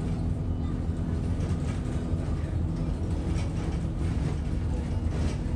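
Alexander Dennis Enviro 200 single-deck bus driving along, heard from inside the saloon near the front: a steady low engine drone, with occasional knocks and rattles from the body and fittings.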